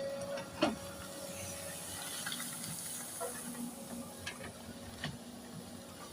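Excavator working: a steady engine hum under a hiss, with a few sharp metallic clanks.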